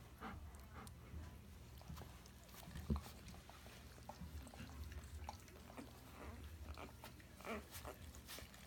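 One-day-old Alaskan Malamute puppies nursing, faint wet suckling and mouthing noises with occasional brief, small squeaks.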